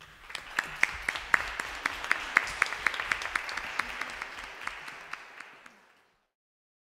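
Audience applauding, a dense patter of many hands clapping at the end of a talk, fading away near the end.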